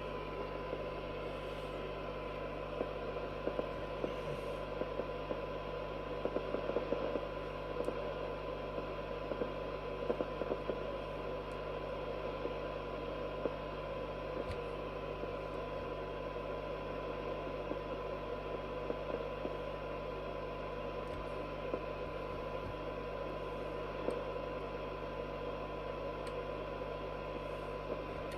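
A 4-metre FM receiver's speaker giving out a steady 1 kHz test tone buried in hiss: a weak signal of about 0.3 microvolt from a signal generator, near the receiver's sensitivity limit, while its front end is tuned for best SINAD. There is a low hum under it and occasional small clicks.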